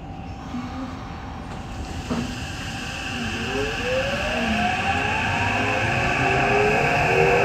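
Tokyo Metro 8000 series subway train pulling away and accelerating. After a knock about two seconds in, the traction motors' whine climbs in pitch, several tones rising together, while the running noise grows louder.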